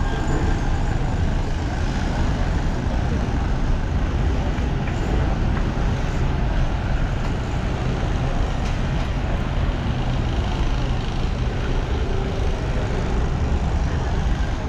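Steady low rumble of vehicle engines and road traffic, with no distinct events standing out.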